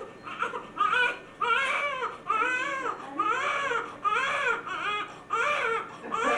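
Newborn baby crying in short rhythmic wails, each one rising and falling in pitch, about one and a half a second: a hungry newborn's cry.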